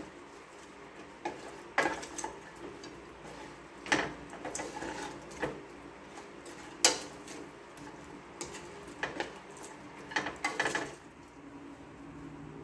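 Plastic spatula scraping and knocking against a granite-coated nonstick wok as sticky sauced chicken wings are tossed, in irregular strokes every second or two. The strokes stop about a second before the end.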